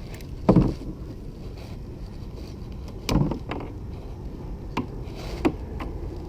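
Thumps and knocks on a small boat while a freshly caught fish is handled aboard: a strong thump about half a second in, another about three seconds in, then a few lighter taps, over a steady low rumble of wind.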